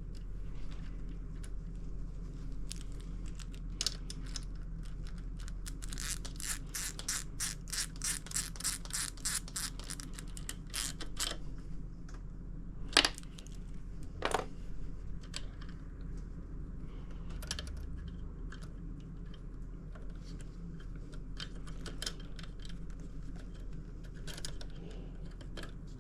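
Small hand-work clicks and taps of tools and parts on the outboard's throttle linkage. The clicks come in a run of quick, even clicks lasting about five seconds, followed by two sharper knocks about a second apart, then scattered lighter clicks.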